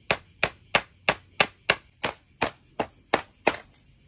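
Wooden-handled hammer driving a nail into a pine board, a steady run of eleven sharp blows at about three a second that stops about three and a half seconds in.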